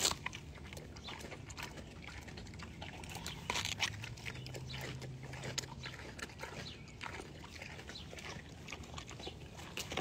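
A pig biting into and chewing a whole watermelon: irregular crunches of the rind as it eats, with a louder bite about three and a half seconds in.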